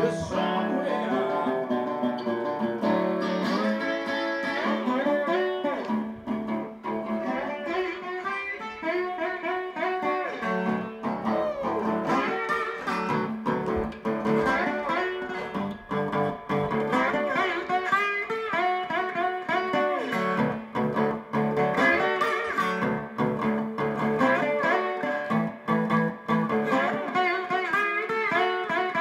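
Metal-bodied resonator guitar played solo: a run of plucked single notes and chords with no singing.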